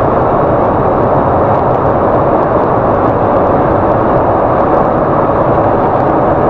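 Steady cab noise inside a Volkswagen 8-150 Delivery truck at highway speed: wind and road noise with the engine running underneath.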